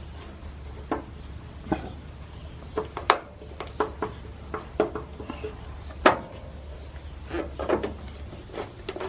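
Irregular clicks and light knocks as screws are driven by hand with a Phillips screwdriver into a turn-signal lamp housing, over a low steady hum that stops near the end.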